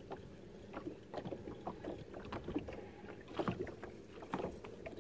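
Small waves lapping and knocking irregularly against a fishing boat's hull, with a fishing reel being wound in while a white bass fights on the line.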